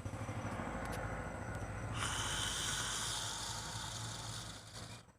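A man's long, deep breath: a rough rushing sound that turns into a louder, higher hiss about two seconds in, then fades out near the end.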